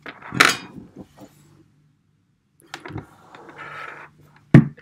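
Handling noise close to the microphone: a short loud rush of rustling about half a second in, quieter rustling, a brief soft laugh, and a sharp knock near the end.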